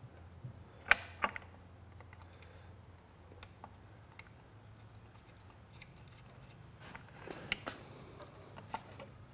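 Light clicks and taps of a plastic belt guard being fitted onto a Sailrite LSZ-1 sewing machine and its screws put back in, with a sharp pair of clicks about a second in and a few more near the end, over a faint low hum.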